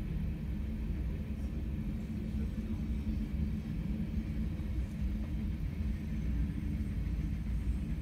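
Manifest freight train rolling past, tank cars going by with a steady low rumble, heard through window glass.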